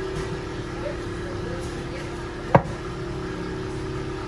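Hydraulic pipe-bursting machine running with a steady drone while it pulls the bursting cable a stroke at a time, with one sharp metal clank about two and a half seconds in.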